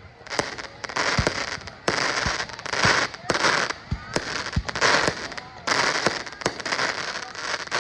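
Fireworks display in a rapid barrage: sharp bangs many times over, with loud bursts of hissing rush about once a second between them.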